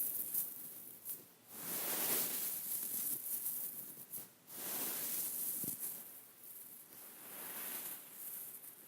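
Fingers scratching and rubbing over a beaded pillow: rustling sweeps across the beads that come in waves about a second long, with a few small clicks.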